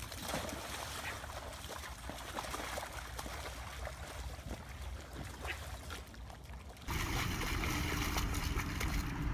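Muddy water splashing and sloshing as an animal rolls and wallows in a mud puddle. About seven seconds in, the sound changes abruptly to a louder, steadier rushing noise.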